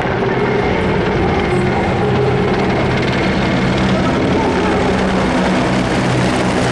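A formation of military helicopters flying overhead: loud, steady rotor and engine noise with a constant low hum.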